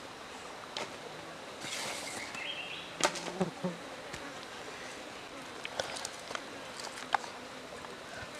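Steady insect buzzing, with a few sharp snaps and crackles from a charred grilled chicken being pulled apart by hand. The loudest snap comes about three seconds in.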